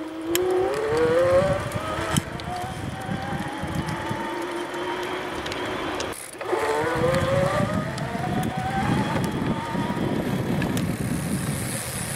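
Electric motor of a Giant Twist Freedom e-bike whining under power in sport mode as the bike accelerates uphill, the whine rising in pitch with speed. About six seconds in it cuts out briefly and comes back lower, rising again, over steady wind and tyre rumble.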